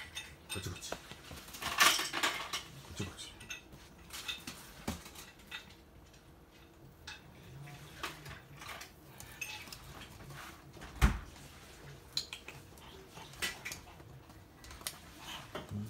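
Scattered light clicks and taps of toy poodle claws on a hard wooden floor, with a louder scrape about two seconds in and a sharp thump about eleven seconds in.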